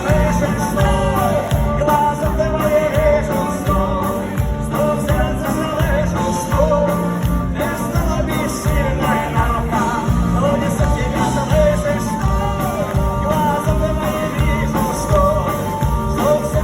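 Rock-style pop song: a male singer's voice over a band with a steady drum beat.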